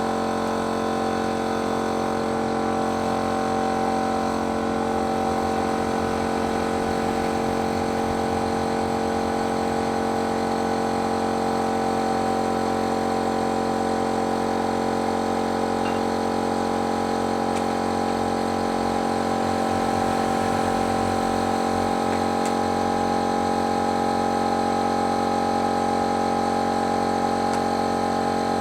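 Motor of a paint-spraying machine running steadily, a constant hum with several fixed pitches that holds without change.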